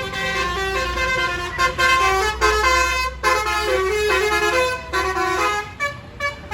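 Bus telolet horn (Basuri type) playing a multi-note melody: several tones sounding together, stepping up and down from note to note with short breaks, over the low rumble of a bus engine.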